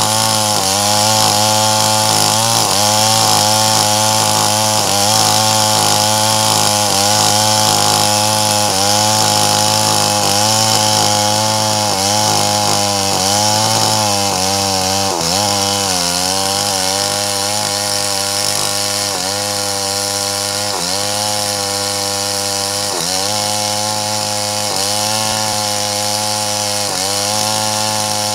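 Stihl MS 381 two-stroke chainsaw running under load, rip-cutting lengthwise along the grain of a large red meranti log. Its pitch sags briefly every few seconds as the chain is pressed deeper into the wood.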